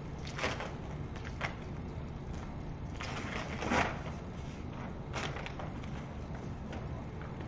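Paper posters being torn off a wall and crumpled: several short rustling bursts, the longest and loudest a little under four seconds in, over a steady low background rumble.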